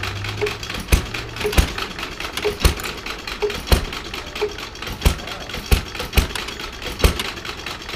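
Small stationary engine running and belt-driving a scale-model Case hay baler, with sharp mechanical knocks roughly once or twice a second.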